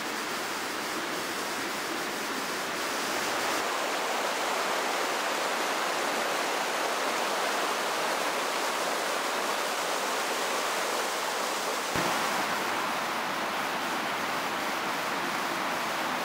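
Steady rushing of a fast mountain river swollen with snowmelt, running over rocks.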